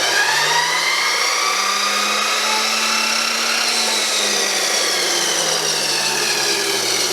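Chicago Electric chop saw's motor running free with a Diablo Steel Demon blade fitted, slowed to about half speed by a variable speed controller, as a no-load test spin. The whine rises over the first two seconds or so, then slowly sinks in pitch.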